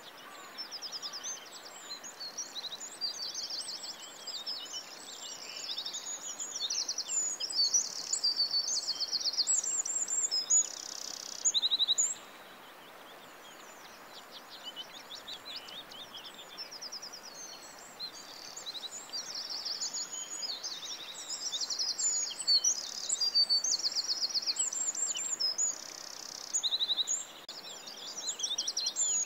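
Recorded songbirds from a birdsong sound effect, singing many quick high-pitched chirps and rapid trills, with a lull of several seconds midway. A faint steady outdoor hiss runs underneath.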